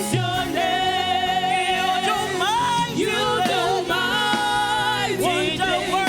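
Gospel praise and worship singing with instrumental backing: voices holding long notes and gliding between pitches over a steady accompaniment.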